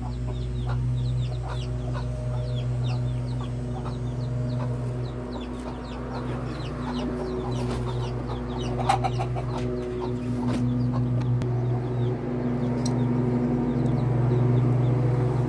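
Silkie chickens clucking, with many short, high chirps throughout. A steady low hum runs underneath.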